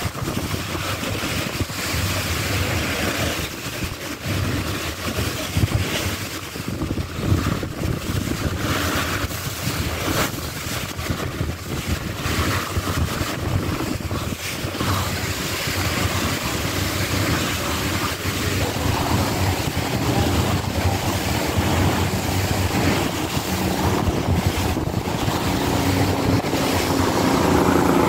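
Wind buffeting the microphone and water rushing past the hull of a moving sightseeing boat, over a low engine hum. In the last third an engine drone with a clear pitch comes in and grows louder toward the end.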